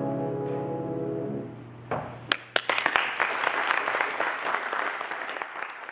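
A grand piano's final chord rings and fades out. From about two seconds in, applause of clapping hands follows.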